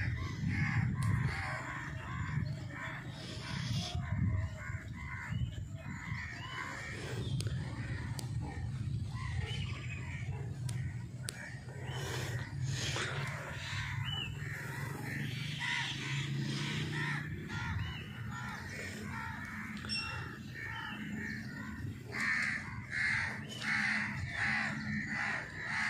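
Many birds calling over a steady low hum.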